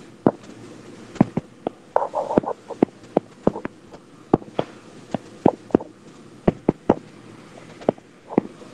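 Irregular sharp clicks or taps, about two or three a second, with a brief rustle about two seconds in.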